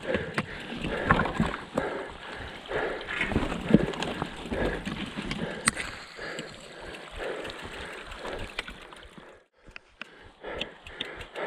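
Footsteps sloshing and squelching through wet, muddy ground in an irregular tread.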